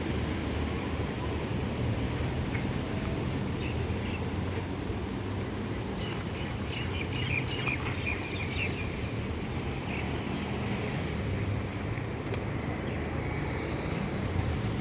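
Steady low hum, machine-like, with a few faint bird chirps about halfway through.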